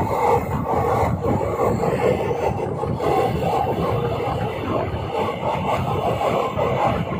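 Train running at speed, a steady loud rumble of wheels on rails heard from on board.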